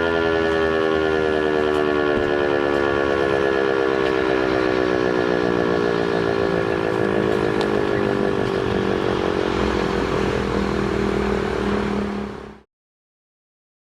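Civil defence siren winding down, its several tones sliding slowly lower in pitch over a low steady hum, until the sound cuts off suddenly near the end.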